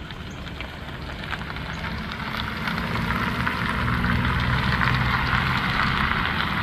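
A motor vehicle's engine and tyre noise growing steadily louder, as of traffic approaching.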